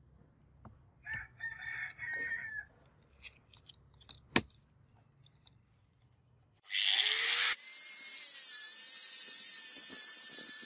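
Handheld angle grinder with a P80 sanding disc on a backing pad starts about two-thirds of the way in and runs steadily with a high whine, sanding the steel face of a forged hammer head. Before it, a rooster crows briefly and there is a single sharp click.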